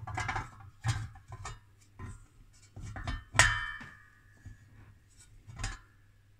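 Metal clanks and clicks as an aluminium cavity-filter lid studded with tuning screws is lifted and shifted off its housing; the loudest knock, about three and a half seconds in, rings briefly like struck metal.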